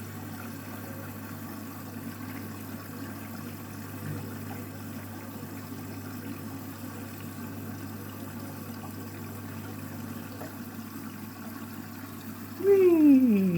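Candy front-loading washing machine taking in water at the start of a rinse, a steady rush of water with a low hum from the machine. Near the end a loud whine comes in and falls steadily in pitch.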